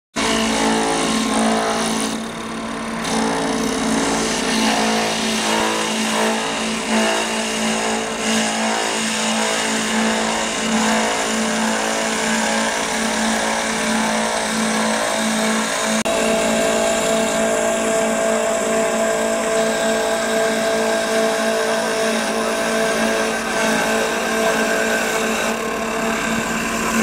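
CNC wood-turning lathe running, its spindles spinning two wooden blanks while the tools cut them: a steady machine hum with a pitched whine over the hiss of cutting wood. A higher steady tone joins a little past halfway.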